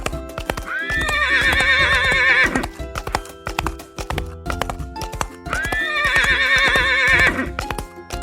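A horse whinnies twice, each a wavering call lasting about a second and a half, over hoof clip-clops and a background music track.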